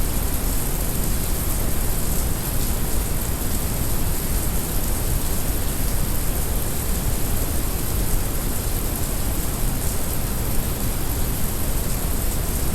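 Heavy rain mixed with brown noise: a steady hiss of rain over a deep, even rumble of noise.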